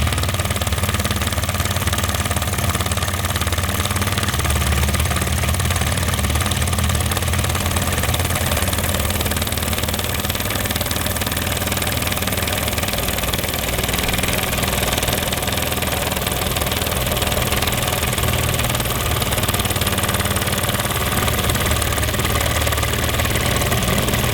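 Wormar Trojan toy steam engine running steadily on steam, a fast, even mechanical beat with steam hissing.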